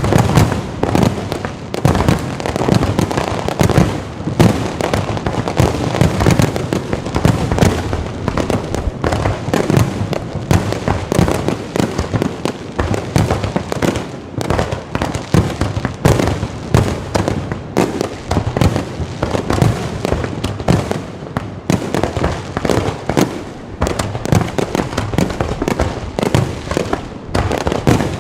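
Fireworks display going off continuously: dense, rapid bangs and crackling shells overlapping one another without a pause.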